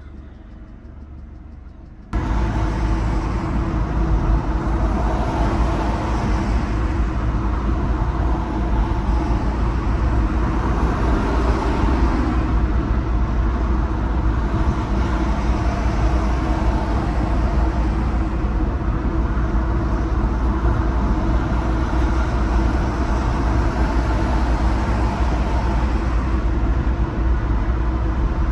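Steady road noise of a car driving on a highway: tyre and engine rumble, heaviest in the low end, with a wide hiss above. It jumps suddenly louder about two seconds in, then holds steady.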